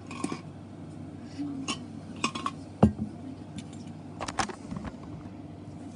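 Things being handled on a tabletop: scattered light clicks and knocks, with one sharp knock a little before three seconds in and a short cluster of clicks near the end.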